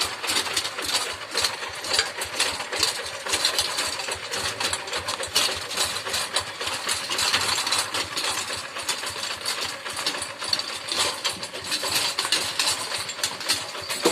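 Rice-field tractor's diesel engine running steadily with a fast, even clatter.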